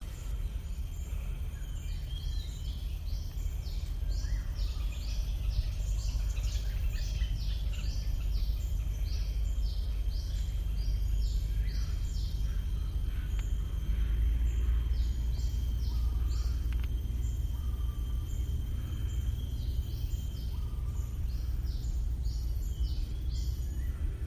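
Wild birds calling in rapid runs of short, high, down-sweeping chirps over a steady thin high tone and a constant low rumble.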